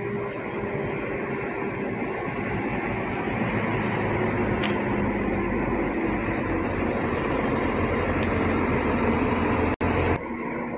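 Diesel engine of a parked double-decker coach running steadily: a low rumble with a hum in it that grows louder as the coach gets nearer. It breaks off for a split second near the end.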